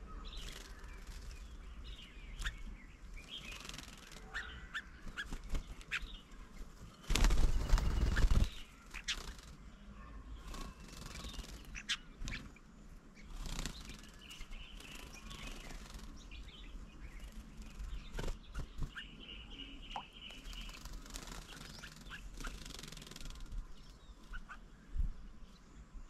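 Small birds at a feeding table: scattered chirps and short calls with light ticks and taps, and a brief run of calls near the end. About seven seconds in comes a loud rustling burst lasting a second or so.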